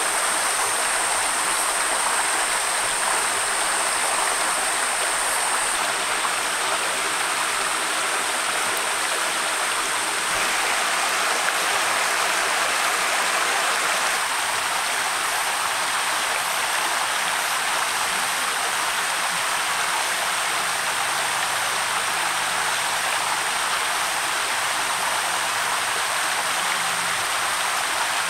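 Shallow stream rushing steadily over rocks, an even water noise that doesn't let up. A thin, high, steady hiss sits above it and eases off about six seconds in.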